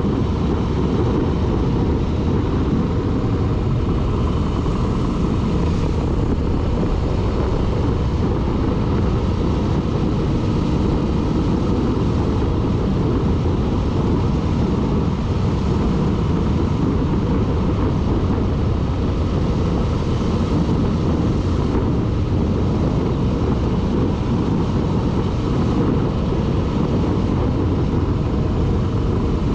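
A vehicle driving along a road: a steady, dense low rumble of mixed engine, tyre and wind noise, with no distinct engine note standing out.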